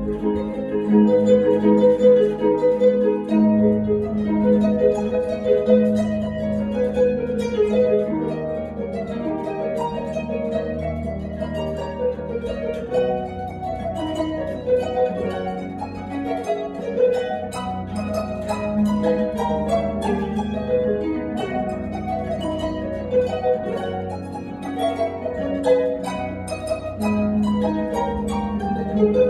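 Concert pedal harp played solo: a continuous stream of rapid plucked notes over ringing lower notes.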